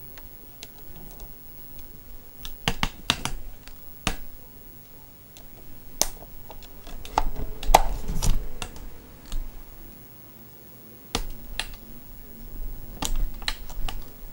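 Handling noise: irregular light clicks and taps, with low rumbling bumps in the middle and again near the end.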